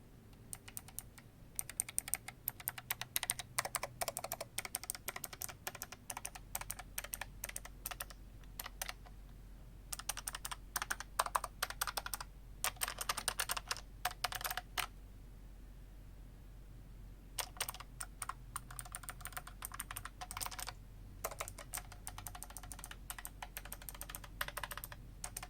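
Typing on a Keychron K5 Ultra Slim mechanical keyboard with clicky blue switches: quick runs of sharp key clicks in bursts, with a break of a couple of seconds a little past the middle.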